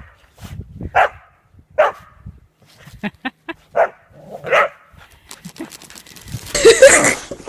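Whippets barking in play: short single barks a second or so apart, with a quick run of short yips about three seconds in. Near the end a louder, rougher stretch of dog noise begins.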